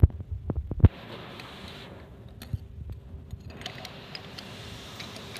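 A compressed-air blow gun hissing in two stretches, the second longer, as it blows dust and debris out of the bolt holes of a steel die plate. A few sharp knocks from handling come in the first second.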